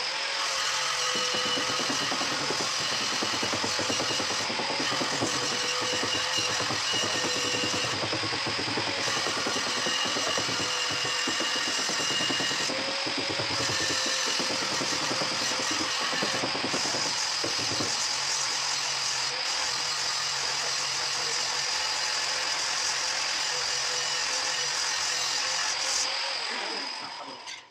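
A steady machine noise at an even, loud level. It starts abruptly and fades out near the end.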